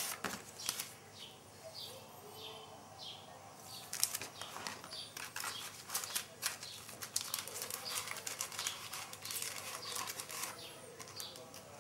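Paper and thin card packaging rustling and crinkling as it is handled, sparse at first, then a dense run of crackles from about four seconds in.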